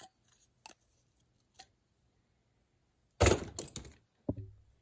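Steel hand tools clinking against a rusty steel trap pan: a few faint clicks, then a louder rattling clatter about three seconds in and a short knock near the end, as vice grips and needle-nose pliers are handled to bend the pan's ear.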